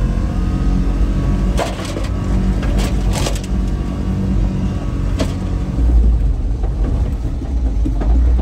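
Small truck's engine running steadily as it drives, heard from inside the cab, with a few sharp knocks about two and three seconds in and again after five seconds.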